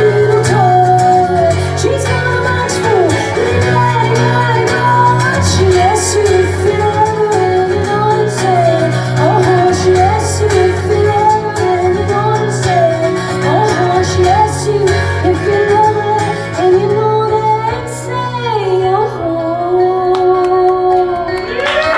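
Live band performance of a country-rock song: a woman singing lead over guitar, bass and drums. Near the end the cymbals drop out and the singing holds long notes.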